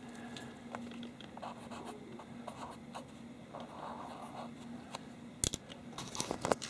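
Felt-tip marker writing numbers on paper in short scratchy strokes. A sharp click near the end, as the marker is set down.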